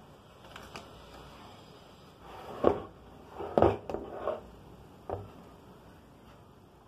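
Knocks and clunks of a Durby sewing machine's cast-iron head being tipped back on its hinges in a wooden table, with a few lighter clicks. The loudest knock comes a little under three seconds in, followed by three smaller ones.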